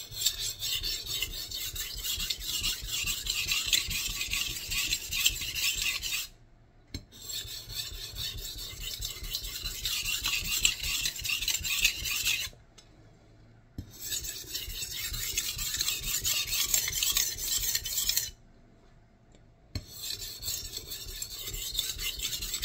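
Nitro-V steel gyuto blade stroked back and forth on a Shapton Kuromaku 1000-grit whetstone: a steady gritty rasping that stops briefly three times.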